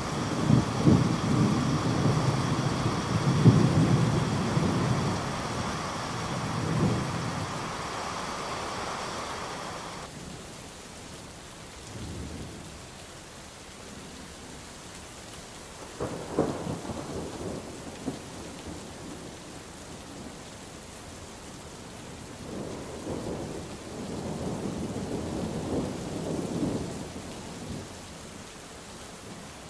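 Thunderstorm: steady rain with rolling thunder, loudest over the first several seconds. About a third of the way in the higher hiss drops away suddenly, leaving softer rain, and further rumbles of thunder come around the middle and again near the end.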